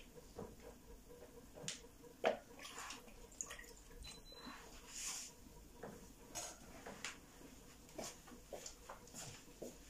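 Faint wet handling sounds of boiled cocoyam being peeled by hand, the hands dipped in a bowl of cold water: soft squishing, dripping and scattered small taps, the sharpest tap about two seconds in.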